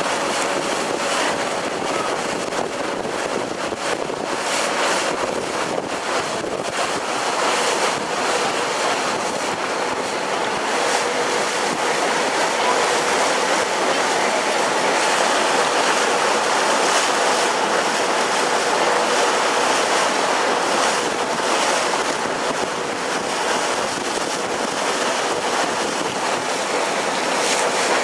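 Steady rush of water and wind on board a passenger boat under way, with a faint, steady drone from the boat beneath it.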